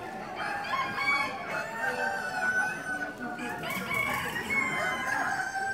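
Many chickens calling over one another: roosters crowing and hens clucking, several calls overlapping at once.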